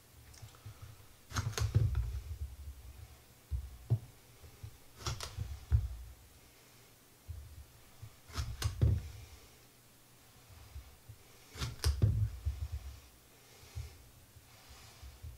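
Kitchen knife cutting slices off a green hot pepper on a wooden cutting board: sharp knocks of the blade on the board every few seconds, some in quick pairs, each with a dull thud.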